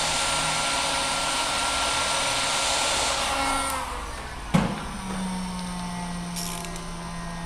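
Heat gun blowing steadily with a fan whine, then switched off a little past three seconds in, its fan winding down with a falling tone. It is heating a wheel screw to soften the threadlocker. A sharp knock follows about a second later, then a steady low hum.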